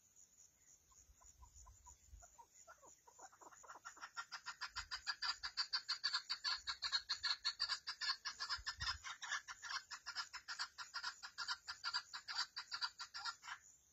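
Female chukar partridge calling: a run of short clucking notes that starts slow and sparse, speeds up into a rapid series of about five notes a second, and cuts off suddenly near the end.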